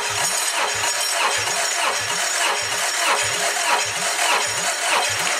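Starter motor cranking a Honda B-series four-cylinder engine with its spark plugs removed, for a compression test: a steady whirr with a regular pulse about twice a second as cylinder one compresses against the tester. It stops right at the end.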